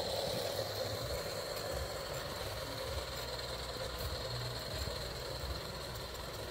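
Coal-fired gauge 1 live-steam model locomotive running past with its train of wagons: a steady, even running noise with a low rumble.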